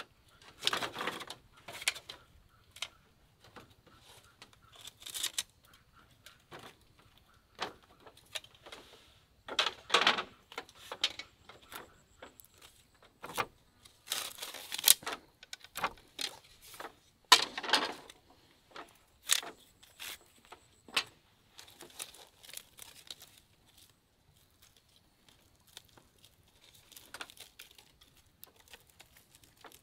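Dry smoked fish being pulled out of split-bamboo smoking clamps by hand: irregular crackling, rustling and tearing, with light clacks of the bamboo sticks.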